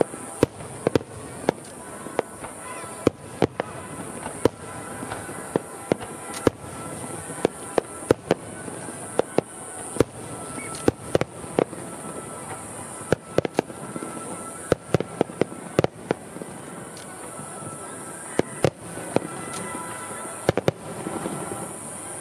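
Fireworks display: aerial shells bursting in quick, irregular succession, sharp bangs coming at times several a second over a continuous background of noise from the display.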